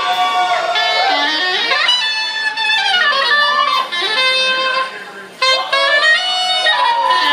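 Live band music led by a reed horn playing a winding melody full of pitch bends and slides. The horn drops away briefly about five seconds in, then comes back in.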